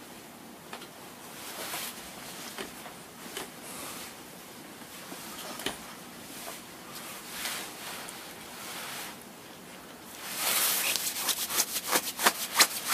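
Rustling and handling noise as a person bends over and moves things close to the microphone, with scattered soft clicks; near the end it grows louder into a quick run of sharp clicks, about five a second.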